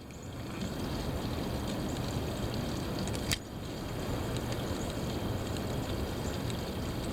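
Heavy wind blowing hard, rising over the first second and then holding steady. A single sharp click sounds about three seconds in.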